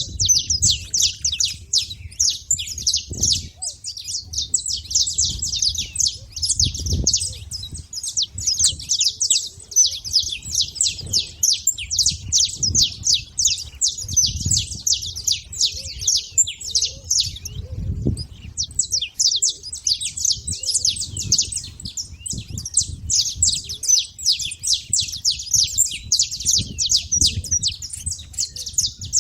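Saffron finches chirping in a fast, dense run of short high notes, pausing briefly a little past the middle, with faint low bumps underneath.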